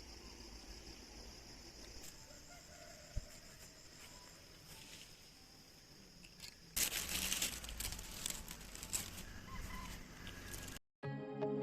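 Quiet countryside ambience with a steady high-pitched hum and distant chickens. About seven seconds in, a rustling, scratchy noise rises, and near the end it cuts to soft music.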